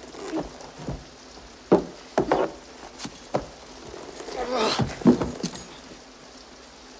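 A wounded man groaning and breathing hard, loudest about five seconds in, among metallic jingling, clinks and a few sharp knocks.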